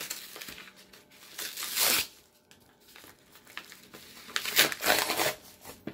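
A yellow mailer bag being torn open and crinkled by hand, with two louder rips, one about a second and a half in and another about four and a half seconds in.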